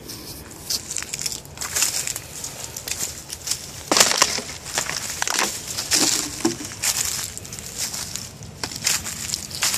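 Footsteps crunching and crackling through dry leaf litter and brittle brush, an uneven run of crunches several a second, loudest about four and six seconds in.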